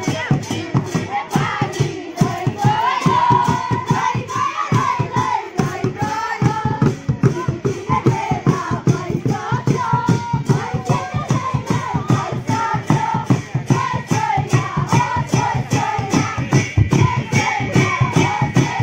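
Sakewa Sili dance music: a barrel drum (dhol) beaten in a steady rhythm of about three strokes a second, under a group of voices singing the dance song.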